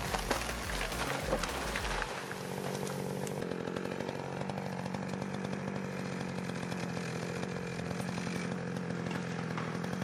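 Chainsaw running at speed. For the first two seconds there is a deep rumble with sharp knocks; after that the engine holds a steady note.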